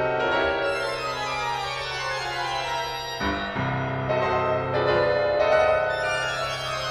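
Solo piano arrangement of an anime soundtrack piece: sustained chords over a steady low bass note, moving to a new chord about three seconds in.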